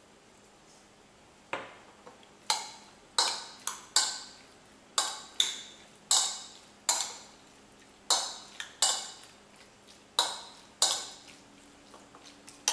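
A metal spoon clinking against a ceramic bowl while stirring sliced raw chicken in its marinade: about fifteen sharp, ringing clinks at an uneven pace of roughly one every half second to second, starting about a second and a half in.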